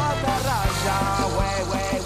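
Background music: a song with a steady drum beat and a singing voice.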